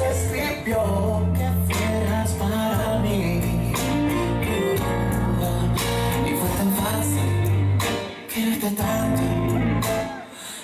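Recorded dance music playing over a sound system: a song with singing, guitar and a sustained bass line. It dips briefly about eight seconds in and again near the end.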